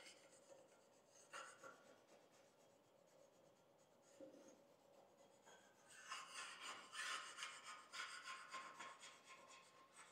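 Faint rubbing strokes on the saw's sliding table, with a couple of brief scuffs early and a steadier run of strokes starting about six seconds in, as spots that may be paint are worked off the surface.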